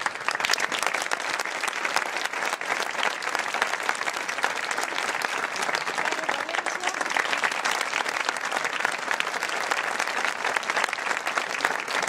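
Audience applauding: many hands clapping in a dense, steady stream that does not let up.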